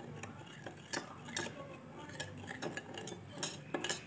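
Metal spoon stirring salt into water in a small stainless steel bowl, clinking irregularly against the bowl's sides and bottom as the salt dissolves.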